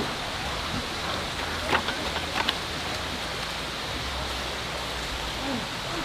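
Striploin steak sizzling on the heat: a steady hiss, with a few sharp spits and pops about two seconds in.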